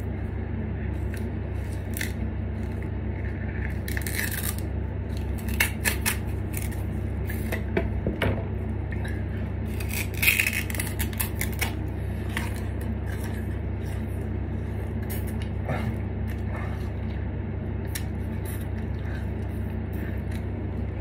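A person biting and chewing raw sugarcane and sucking the juice from its fibres, with scattered short wet crunches and clicks, over a steady low hum.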